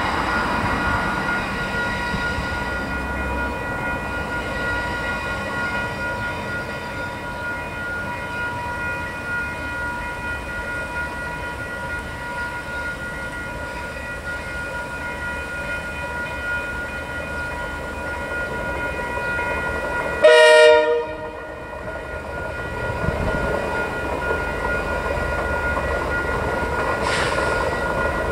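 Level crossing alarm ringing steadily over idling road traffic. About two-thirds in, a diesel locomotive's horn sounds one short, loud blast as the train approaches the crossing, and the locomotive's engine grows louder towards the end.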